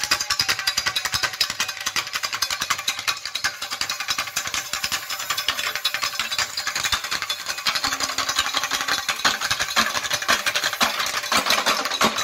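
Fast, dense percussion: drums struck in a rapid, unbroken stream of sharp hits, bright and with little bass.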